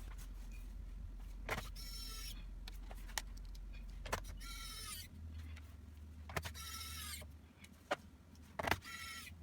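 A small electric motor whirring in four short runs of about half a second each, with sharp clicks between the runs.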